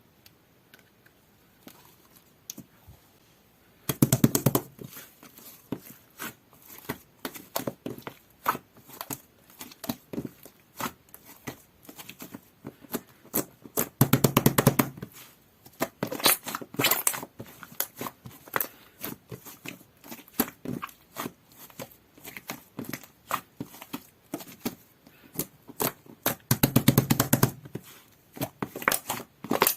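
Jelly-textured slime being squished and pressed by hand, giving a dense run of wet clicks, pops and crackles. Louder squelching bursts come about 4, 14 and 27 seconds in, after a faint start.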